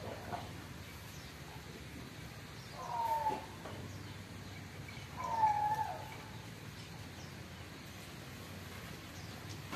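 Two short animal calls, each a brief tone falling slightly in pitch, about two and a half seconds apart, over faint high chirps.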